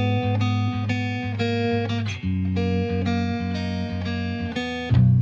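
Background music: plucked guitar notes over a steady bass line, a louder passage starting near the end.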